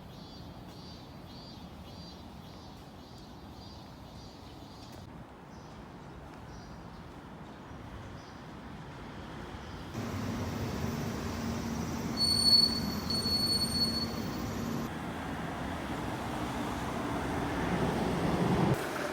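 Steady rumbling background noise that jumps louder about ten seconds in, with two short high squeals soon after, then grows louder until it cuts off near the end.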